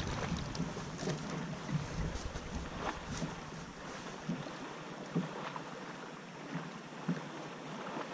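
Wind buffeting the microphone over a boat on open water, with faint knocks and ticks as a small bass just lifted from the water is handled and unhooked. The low wind rumble dies away about halfway through.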